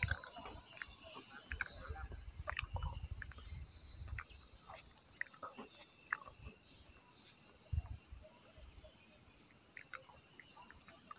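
Faint riverside jungle ambience: a steady high-pitched insect drone with scattered short chirps and ticks, and a soft low rumble now and then.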